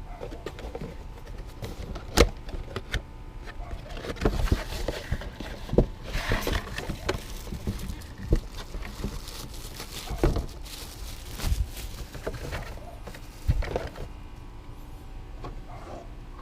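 Plastic parts being handled: an engine air filter and its airbox housing knocked and shifted about, with several irregular sharp knocks and a scratchy rustle of the filter in between.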